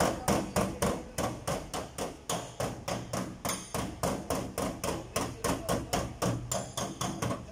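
Body hammer striking a flat body spoon held against a dented steel car door panel, knocking the dent out. Sharp, evenly spaced blows, about three to four a second.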